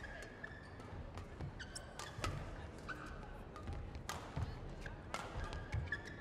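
Badminton rally: several sharp racket strikes on the shuttlecock, mixed with short squeaks of court shoes on the floor.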